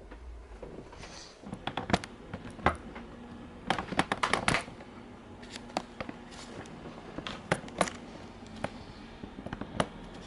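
A run of sharp, irregular snaps and clicks, loosest at first, bunching into a quick cluster about four seconds in, then scattered single snaps.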